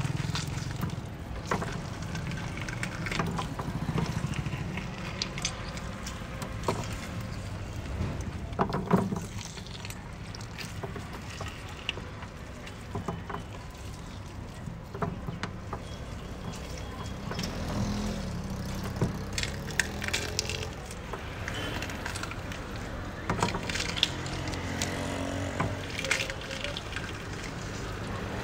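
Busy street ambience: a steady traffic rumble with scattered knocks and clatter, one louder knock about nine seconds in.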